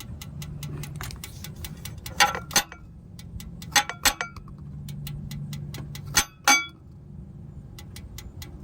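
Shut-off Dodge Challenger SRT8 6.1 Hemi ticking down by the exhaust headers, a fast metallic tick about four times a second. Several sharp metal taps on the headers come in pairs, and the ticking pauses briefly after the last pair before it resumes. The owner suspects a lifter and a worn cam lobe.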